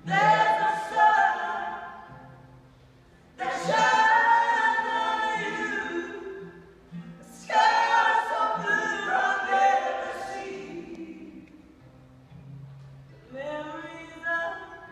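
Live folk-rock vocal trio, male and female voices, singing in close harmony with almost no accompaniment. Three loud held phrases each swell and fade away, then a softer phrase begins near the end.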